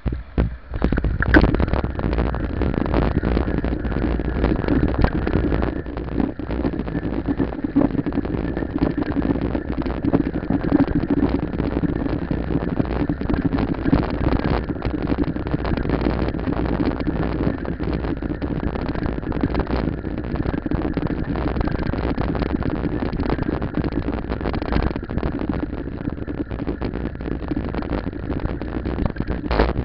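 Wind buffeting the microphone of a bicycle-mounted camera, mixed with road rumble and rattle as the bike rolls over asphalt; a dense, steady rumbling noise that cuts in suddenly at the start.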